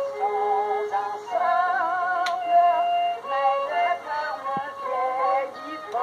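Solo violin played fiddle-style, a traditional dance tune with quick note changes.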